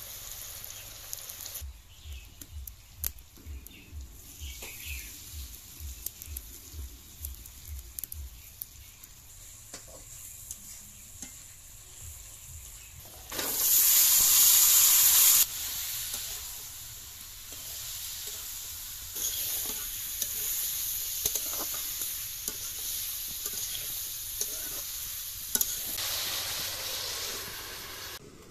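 Onions, green chillies and chilli powder sizzling in hot oil in an iron kadai, with scattered clicks of stirring. About halfway through, chopped radish is tipped into the pan with a loud burst of sizzling lasting about two seconds, which then settles into a steady sizzle.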